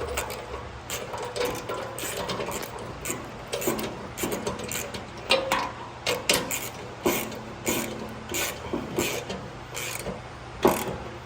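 A 19 mm wrench tightening bolts on a steel drum-mower frame: irregular metallic clicks and knocks, about one or two a second.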